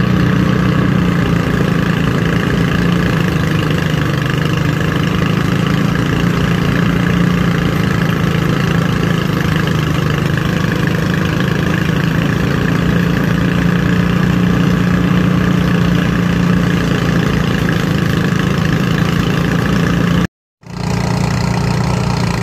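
Engine-driven rice threshing machine running steadily while rice stalks are fed into its drum, a continuous loud engine hum with the whir of the threshing drum. The sound cuts out for a moment near the end, then the machine is heard running again.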